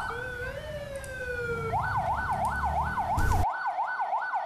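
Ambulance electronic siren: one slow rising-and-falling wail, then about 1.7 seconds in it switches to a fast yelp sweeping up and down about three times a second. A low background rumble runs under it and drops away about three and a half seconds in.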